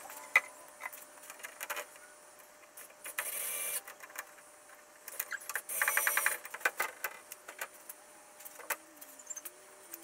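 Cordless drill-driver running in two short bursts, about three and six seconds in, driving screws into the cabinet. Sharp clicks and knocks of handling come between, the loudest a click just after the start.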